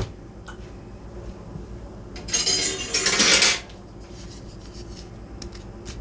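A seasoning jar knocks down onto the counter, then about two seconds later comes a scraping rattle of kitchen utensils lasting a little over a second, as a wooden spoon is taken up.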